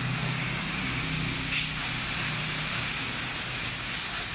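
Pressure washer jet spraying water onto a wet concrete floor and a bicycle, a steady spray with a low steady hum underneath.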